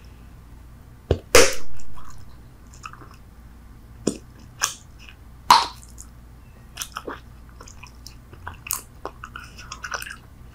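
Bubble gum chewed close to the microphone: irregular wet smacks and clicks, with a few louder snaps, the loudest about a second and a half in and another just past five seconds.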